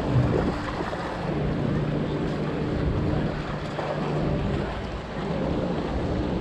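Sea surf washing against a rocky shore, with wind buffeting the microphone and a steady low hum in the middle.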